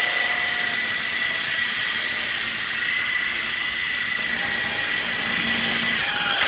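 Small RC Apache toy helicopter in flight: its electric motor and rotors give a steady high whine, which dips in pitch briefly near the end as the speed changes.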